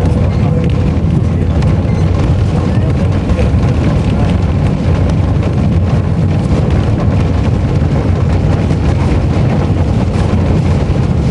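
Horse-drawn tram running along its rails: a steady, loud rumble and rattle of the tramcar in motion, with wind on the microphone.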